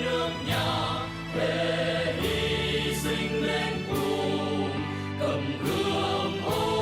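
Music: a choir and accompanying band performing a march-style patriotic song, with full sustained chords and a cymbal crash about every one and a half to two seconds.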